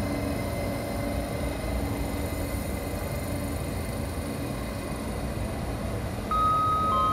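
Trenitalia ETR 104 'Pop' electric multiple unit rolling along the platform track, a steady rumble of wheels and running gear with a faint motor hum that fades. About six seconds in, a two-note station PA chime starts, sustained clear tones announcing a coming message.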